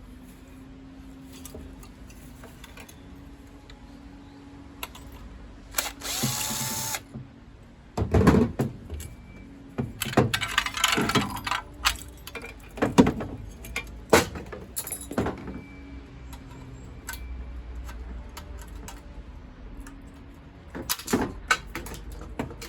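Hand and power tools working on metal boiler parts: a short burst of a small power tool about six seconds in, then a series of sharp metal knocks and clanks.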